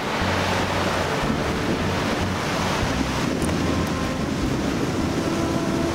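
Steady surf washing on the beach, with wind buffeting the microphone in low gusts.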